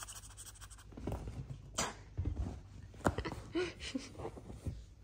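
Serval, caracal and bobcat kittens shifting about on a fabric-covered couch while a hand strokes one: soft rustling and light scattered knocks, with one or two short, faint animal sounds near the middle.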